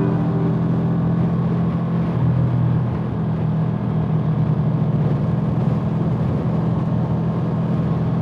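Vehicle engine running steadily at cruising speed, a constant low drone with road and wind noise over it.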